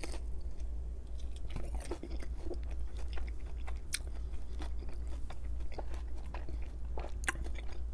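Close-miked chewing of soft pierogi dumplings, with scattered wet mouth clicks and smacks, over a steady low hum.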